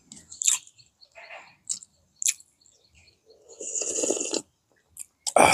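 Close-up eating sounds: crisp crunching and chewing of deep-fried fish, with short sharp clicks, then a longer slurp from a soup bowl about four seconds in, and a loud short noise near the end.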